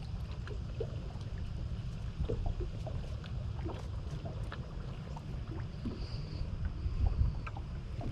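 Wind buffeting the microphone in an uneven low rumble on an open fishing boat, with water lapping and scattered light clicks and taps.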